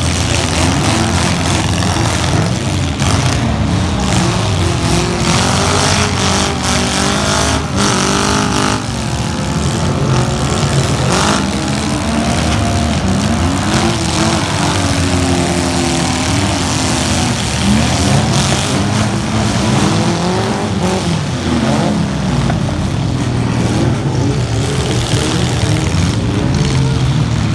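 Several demolition derby cars' engines revving hard together, their pitch rising and falling, with a few loud metal crunches of cars colliding.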